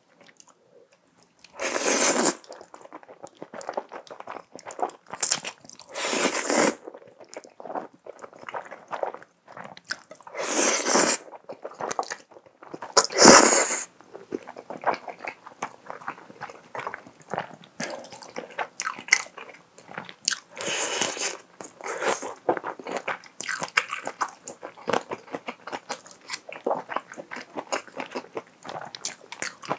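Close-miked eating of creamy fettuccine pasta with shrimp: several loud slurps of noodles in the first half, the loudest about 13 seconds in, between stretches of wet chewing and small mouth clicks.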